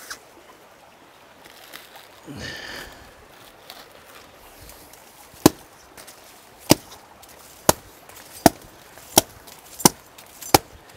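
Machete chopping into the fibrous husk of a sprouted coconut: sharp strikes about one a second, seven in all, starting about halfway through.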